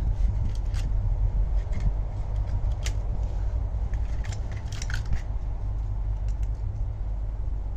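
Scattered light metallic clicks and taps from hand work on a car door's handle carrier and lock parts, over a steady low rumble.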